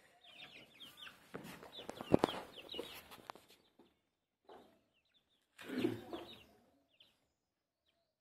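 A flock of chickens feeding: hens clucking and chicks giving short, falling peeps, with a sharp tap about two seconds in. The sounds die away about seven seconds in.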